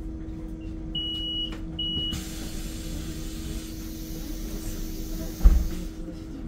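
Inside a Solaris Urbino 9 IV LE Electric bus: a steady electric hum, two short high beeps about a second in, then a long hiss of air lasting about three and a half seconds, with a heavy thump near its end.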